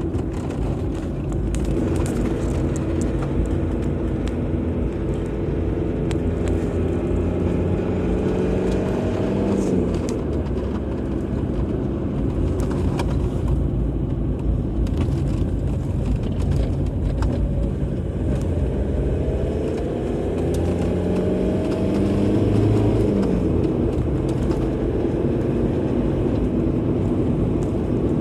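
Car driving with steady road and tyre noise. The engine's pitch climbs slowly as it accelerates, then drops suddenly about ten seconds in and again about 23 seconds in as it shifts up a gear.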